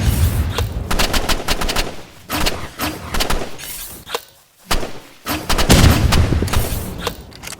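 A rapid, irregular string of sharp bangs and cracks, with heavy low booms at the start and again about six seconds in, and a brief lull a little past the middle.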